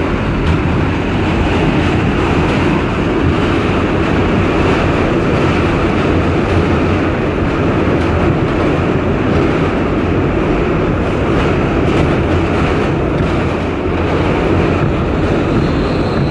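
Steady running noise heard from inside an R160B subway car (Siemens propulsion) moving along the track: a dense rumble of wheels and car with an even hiss above it and no separate knocks or squeals.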